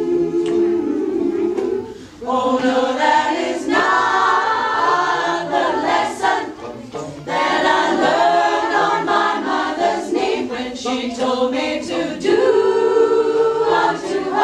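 Amateur choir of mostly women's voices singing a cappella in phrases, with short breaks about two, seven and twelve seconds in.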